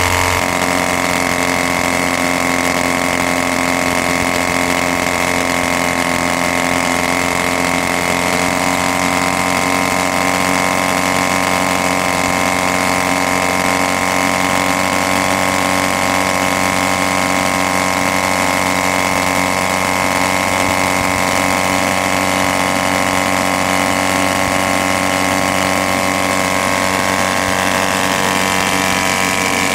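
McCulloch four-cylinder two-stroke engine of a KB-2 gyrocopter running at a steady speed, driving its pusher propeller. The pitch rises slightly near the end.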